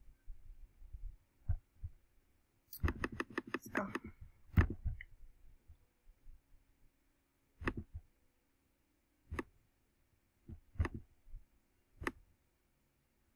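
Computer mouse clicking: a quick run of about ten clicks about three seconds in, then single clicks every second or two.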